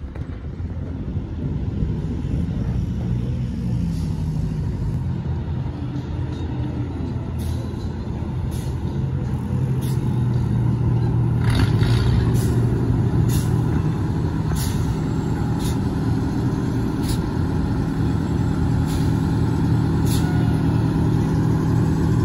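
Fire truck engines running as the trucks drive slowly past in procession: a steady low engine drone that grows louder about halfway through as a truck comes close. A scatter of short, sharp sounds comes in over the drone in the second half.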